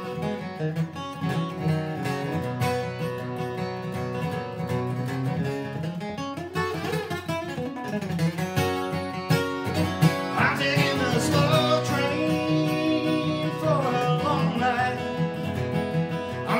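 Acoustic steel-string dreadnought guitar playing a flatpicked bluegrass instrumental break between verses, picked melody notes over strummed chords.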